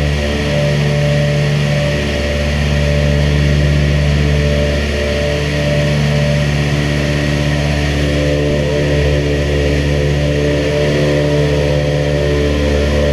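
Twin Wright R-2600 radial engines of a B-25 Mitchell bomber running loud and steady at high power during the takeoff run, heard from inside the fuselage.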